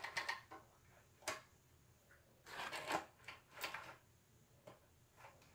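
A dual-layer zebra roller blind being lowered by hand: a few faint, short bursts of rustling and clicking from the blind, with one sharp click about a second in.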